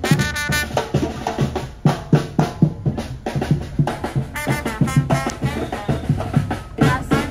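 Upbeat music with a busy drum and percussion beat and a melody over it.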